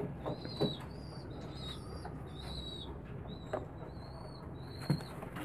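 Faint, high-pitched bird chirps repeating about twice a second, with a few soft clicks from handling the syringe.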